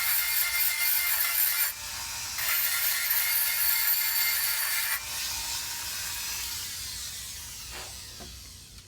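High-speed rotary tool with a carbide burr cleaning up brass around a soft-solder joint that has let go, its motor whining at high pitch. It lets off briefly about two seconds in, runs again, then is switched off about five seconds in and winds down.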